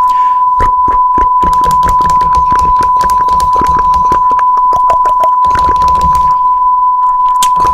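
One long, loud electronic beep at a single steady pitch, like a censor bleep, stopping abruptly at the very end. Rapid clicks and crackle sound faintly under it.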